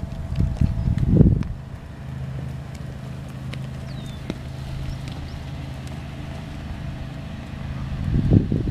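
Wind buffeting the microphone in gusts, loudest about a second in and near the end, over a steady low hum. A horse's hoofbeats in the loose arena sand come through faintly.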